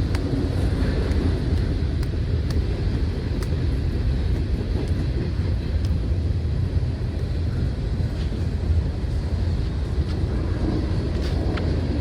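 Freight train rolling by: a steady low rumble with a few sharp clicks scattered through it.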